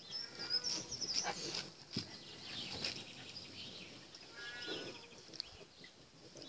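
French bulldog puppies whining and squeaking in short high cries while pawing and lapping at water in a plastic paddling pool, with small splashes.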